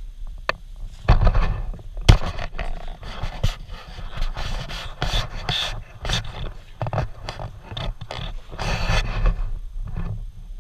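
Handling noise from a handheld camera carried while walking: irregular rubbing and bumping against the microphone over a low rumble.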